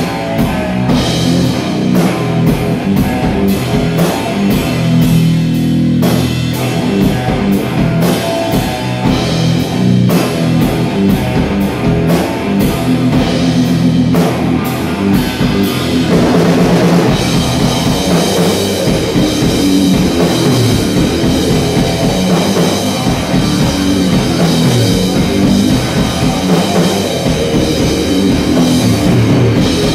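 A rock band playing live: heavy electric-guitar riffs over a drum kit, with the drum pattern changing about halfway through.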